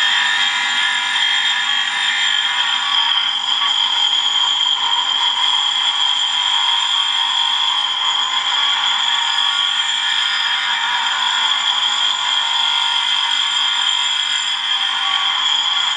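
Cup grinding wheel on a belt-driven grinder spindle sharpening a dull round-nose lathe tool bit held against its face: a steady high grinding hiss with a high whine through it.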